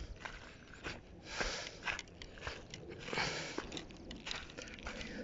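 Footsteps crunching and scraping over loose stones, in uneven steps with a few short noisy rushes.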